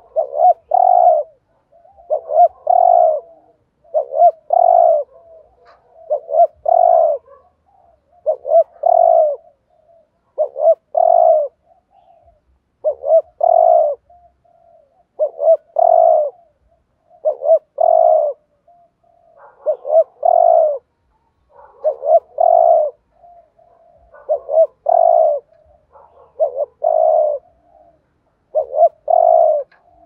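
Spotted dove cooing, repeating the same phrase about every two seconds: two or three short notes, then a longer coo. It is a caged decoy dove's call, used to draw in wild doves.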